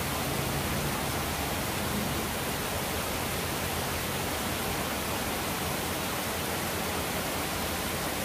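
Steady, even hiss of background noise, unchanging and without distinct events.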